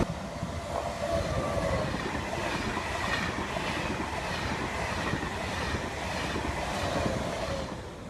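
A high-speed train, the SNCF TGV Duplex, running on the track: a steady running noise with faint wavering tones above it.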